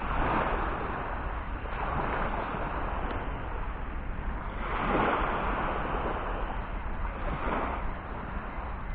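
Small waves washing onto a sandy shore, the surf noise swelling and fading every two to three seconds, with wind rumbling on the microphone.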